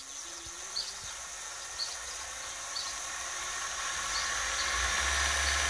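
Juma 800 W sewing-machine servo motor driving a belt-and-pulley speed-reducer jackshaft, being run up in speed toward its 6000 rpm limit: a whine that rises in pitch and grows steadily louder, with a light tick about once a second and a low hum building near the end.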